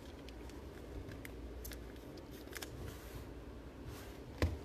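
Trading cards being handled and moved by hand: a few faint clicks and card-on-card slides, then a louder tap near the end, over a low steady hum.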